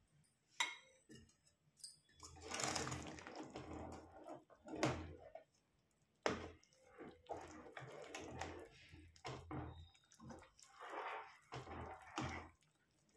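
Steel spoon stirring maize flour into boiling water in a steel pot: irregular scraping and sloshing, with a couple of sharp metal clinks in the first two seconds. The flour is being stirred in to keep it from forming lumps.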